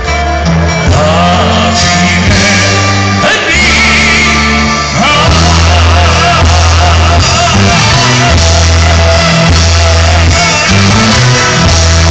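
A live band plays a Greek popular song with a male lead singer. The sound is loud, as heard from within the audience.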